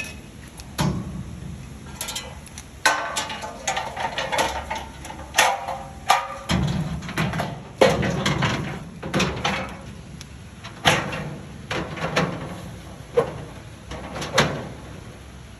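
Irregular knocks and clatter of filing-cabinet parts being handled and fitted together during assembly, with a denser rattle a few seconds in.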